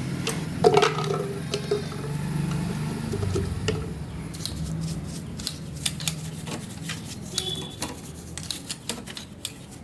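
Scattered small metallic clicks, clinks and rubbing from hand work on a Remington typewriter's mechanism during servicing, the sharpest click about a second in, over a low steady hum.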